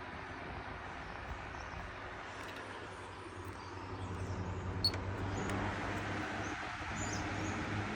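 National computer-controlled box fan running, its electric motor humming with a steady rush of air; the hum grows stronger about three to four seconds in. A single sharp click near the middle.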